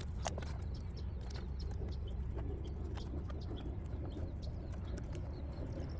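Electrical tape being wrapped around a wire splice: scattered small clicks and light crackling rustle, over a steady low hum.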